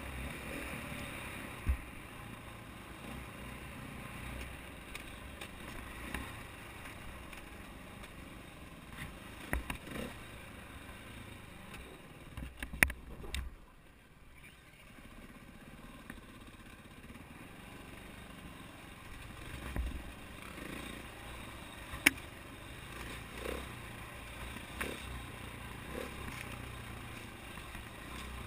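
KTM 450 XC-W's single-cylinder four-stroke engine running as the dirt bike rides rough singletrack, with several sharp knocks and clatter over it. The sound dips briefly about fourteen seconds in.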